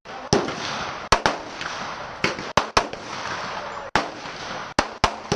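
Gunshots at a shooting range: about ten sharp reports in five seconds, irregularly spaced and some in quick pairs, as from more than one shooter firing.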